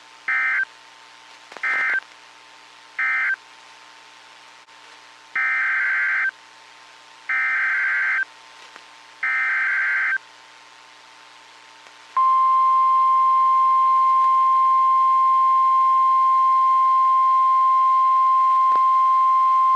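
NOAA Weather Radio Emergency Alert System tones. First come three short screechy data bursts that close the previous message, then three longer SAME header bursts that open a new alert. About twelve seconds in, the long steady single-pitch weather radio warning alarm tone begins and holds, the signal that a warning follows; here it is a tornado warning.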